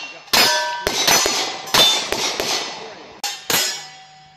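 Rapid string of pistol-caliber carbine shots at steel targets, each sharp crack followed by the ring of a struck steel plate. The shots come a half second or so apart, with the last one about three and a half seconds in.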